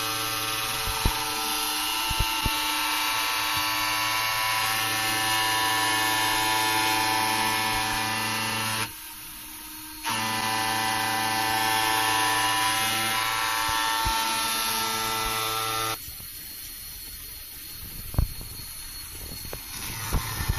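A small brushless motor belt-driving a dovetail grinding spindle with a sandpaper pad, running with a steady whine of several tones while it grinds the steel cross-slide dovetail. It stops briefly about nine seconds in, starts again a second later, and cuts off about sixteen seconds in. A few sharp clicks follow as the grinder is handled.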